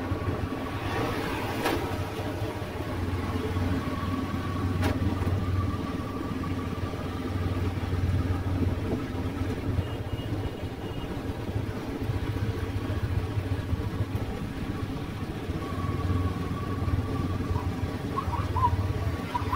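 Steady motorbike street traffic: engines running and passing, over a continuous low drone.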